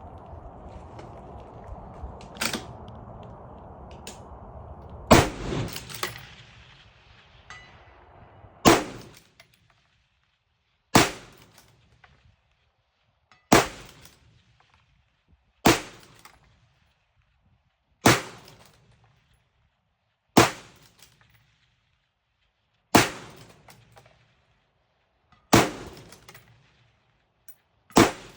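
Ruger Precision Rifle in 6.5 Creedmoor, a bolt-action rifle, firing a rapid ten-shot string about one shot every two and a half seconds, each loud crack trailing off in an echo. A fainter sharp crack comes about two seconds before the first shot, and a steady hiss fills the first several seconds.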